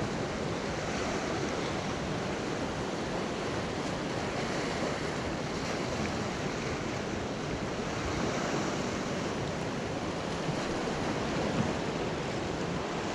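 Ocean waves washing steadily, with wind on the microphone.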